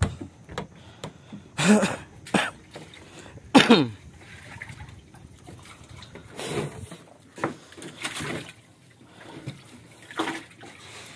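Live groupers thrashing and splashing in a shallow plastic tub of water as they are tipped in from a net, in irregular bursts, the loudest near two and four seconds in.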